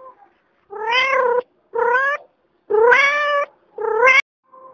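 Domestic cat meowing four times in the plain, unprocessed version. Each call is short and rises a little in pitch, and the last is cut off abruptly with a click.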